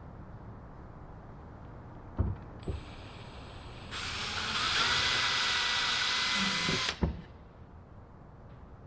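Power drill boring a pilot hole for a hinge screw: a couple of knocks, then the drill runs with a steady whine for about three seconds and stops suddenly, followed by a knock.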